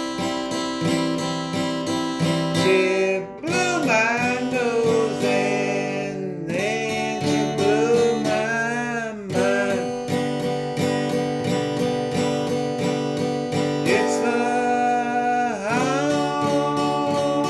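Acoustic guitar strummed in a steady rhythm through a country song, with a voice singing long, wavering notes over it in stretches.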